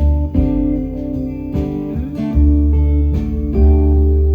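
Live music without vocals: a guitar strummed and picked over deep, sustained low notes.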